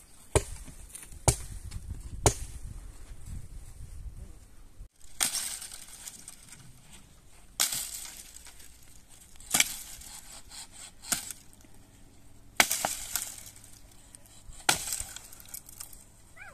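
Firewood being chopped: three sharp blows about a second apart, then after a short break, more blows every two seconds or so, each with a brief crackling tail.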